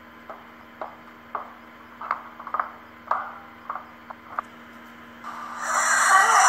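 Slow barefoot footsteps on a floor, a soft step about every half second over a faint steady hum. Near the end a loud noisy sound swells up sharply and drowns them out.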